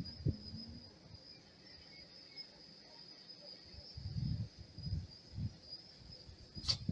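Insects chirring steadily at a high pitch, with low rumbles coming and going underneath and a single sharp click near the end.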